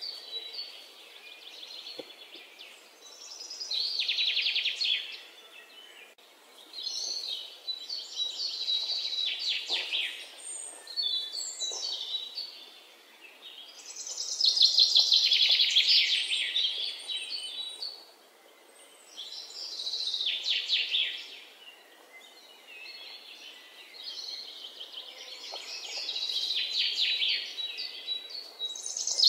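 Songbirds singing: phrases of rapid, high trilled notes, each a second or two long, coming every few seconds.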